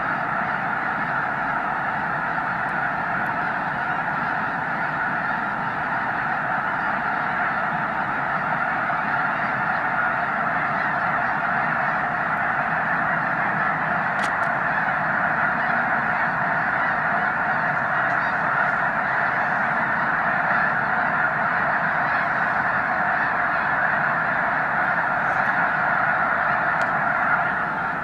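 A huge flock of snow geese calling in flight overhead: a dense, unbroken chorus of countless overlapping calls, steady throughout.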